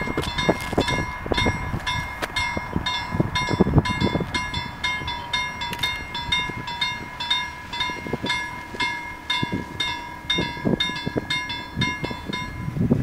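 Level crossing warning bell ringing steadily with rapid, evenly spaced strikes, about two to three a second, warning of an approaching railbus.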